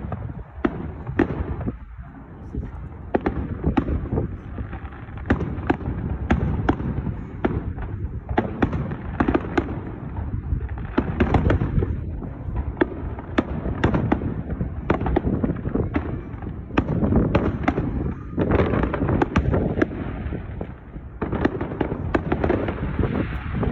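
Fireworks going off in rapid succession: a dense run of sharp bangs and crackles, several a second, with no real pause.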